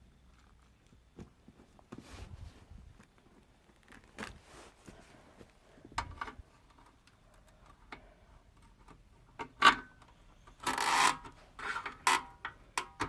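Rubbing, scraping and scattered clicks and knocks from a Panasonic speaker being handled during disassembly. The sounds come irregularly, growing busier and louder near the end with one longer scrape and several sharp clicks.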